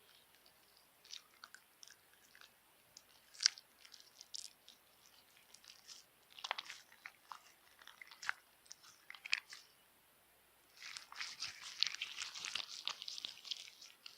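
Stiff slime being squeezed and pressed by hand, giving sharp clicks and crackling pops: scattered at first, then a short pause and a dense run of crackles near the end.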